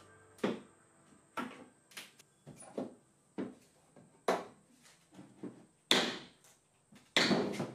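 Wooden boards knocking and clattering as closet framing is pried apart and handled: irregular knocks, roughly two a second, with the loudest near the end.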